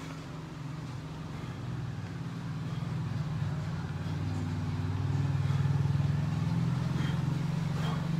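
A motor vehicle's engine running as a steady low drone. It grows louder through the middle of the clip and then holds.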